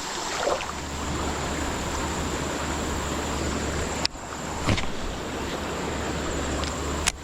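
Steady rushing of a creek running high after heavy rain, with a low rumble underneath; it breaks off briefly about four seconds in and again near the end.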